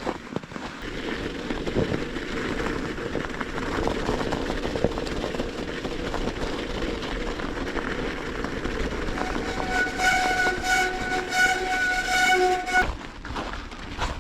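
A train passing with a steady rumble, its horn sounding in a run of short blasts for about the last four seconds before cutting off.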